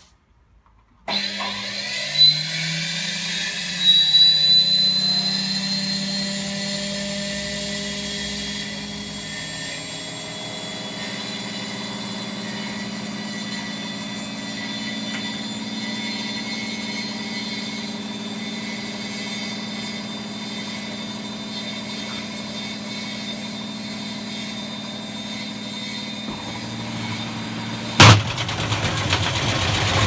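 Indesit W133 washing machine starting up, its motor spinning the drum up with a rising whine over the first few seconds, then running steadily. Near the end comes a sudden loud bang, after which the running turns louder and rougher as the machine shakes.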